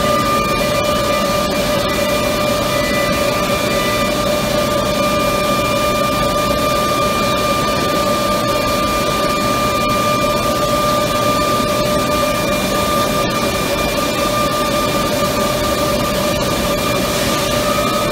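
Steady industrial machinery noise from a running corrugator line: a constant loud hiss and rumble with a high whine held at one pitch.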